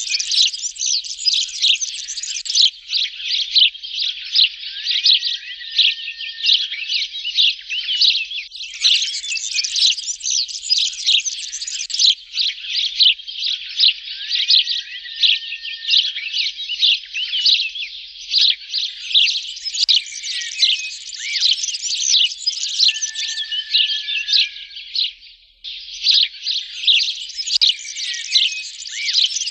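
Sparrows chirping in a rapid, dense, continuous chatter of high, quick calls. The chatter breaks off briefly a few times, most clearly near the end, then starts again.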